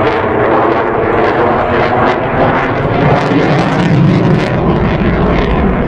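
Loud, steady engine noise from a fixed-wing aircraft in flight, with a crackling edge from about two to four and a half seconds in.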